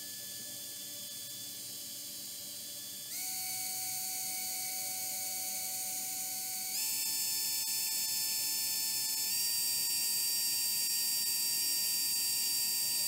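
blö micro cooling fan running with a high-pitched whine from its small motor and blades. The whine steps up in pitch and loudness three times as the fan is switched through its speed settings, then cuts off when it is turned off.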